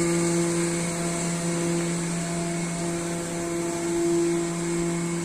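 Tronair ground hydraulic power unit (hydraulic mule) running with a steady, even-pitched hum, held just below 1,500 psi to pressurize the Learjet 25's hydraulic system for a ground functional check.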